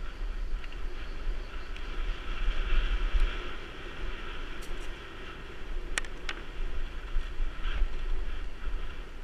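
Wind buffeting the microphone of a camera riding on a mountain bike during a fast downhill on a dirt singletrack, with the steady rattle and tyre noise of the bike and two sharp knocks about six seconds in.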